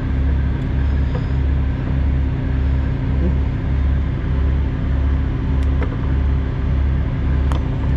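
Diesel truck engine idling with a steady low drone that throbs evenly about twice a second. A couple of light clicks near the end come from the trailer door latch and seal being handled.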